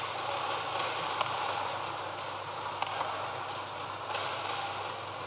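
Badminton rackets striking a shuttlecock during a doubles rally: three sharp hits spaced about a second and a half apart, over the steady noise of the hall.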